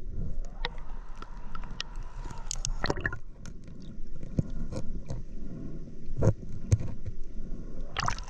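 Irregular sharp clicks and knocks over a steady low rumble of rushing river water, with a louder cluster of clicks about three seconds in and again near the end.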